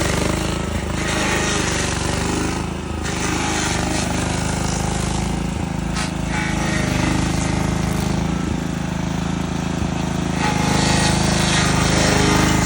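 Stump grinder running under load, its engine droning steadily while the cutter wheel chews into the wood of a stump with a rough, rattling grind that swells and eases and gets louder about ten seconds in.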